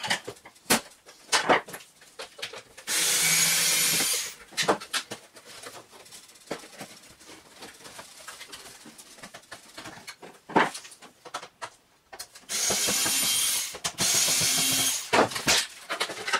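Cordless electric screwdriver running in short bursts of about a second, once about three seconds in and twice in quick succession near the end, backing out the screws that hold a vacuum cleaner motor in its housing. Between the bursts, clicks and knocks of plastic parts being handled.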